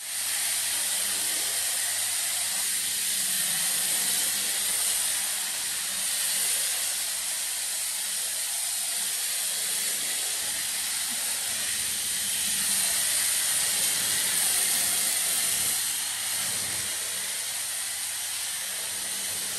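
High-pressure foam lance spraying snow foam onto a truck, a steady loud hiss of the jet.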